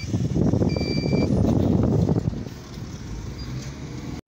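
Car driving, heard from inside the cabin: a low engine and road rumble that eases off a little after two seconds in. Over it, a high electronic beep repeats about once every second and a bit, ending about a second and a half in.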